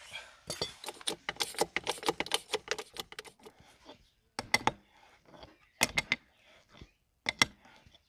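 Metal clicking and clinking of a wrench working the wheel nuts on a tractor's front wheel rim: a quick, dense run of clicks for about three seconds, then a few short clusters of clinks.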